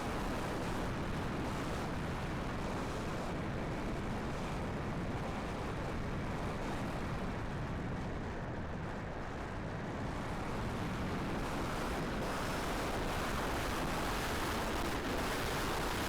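Strong gusty wind buffeting the microphone: a steady rushing noise, heaviest in the low end, easing slightly partway through and then rising again.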